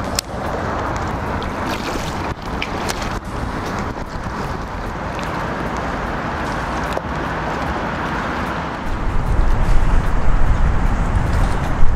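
Steady outdoor hiss with a few sharp clicks in the first few seconds; from about nine seconds in, low wind rumble buffets the microphone and the level rises.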